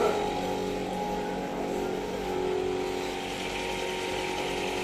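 An engine running steadily, giving a hum of several held tones.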